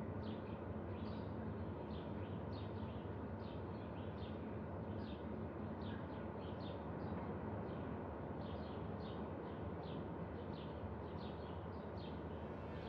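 Ambience bed of a steady low rumble, with a small bird chirping over it in short, high notes about twice a second.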